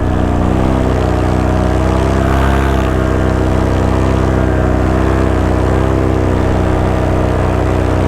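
Paramotor engine and propeller running at a steady throttle in flight, holding an even pitch.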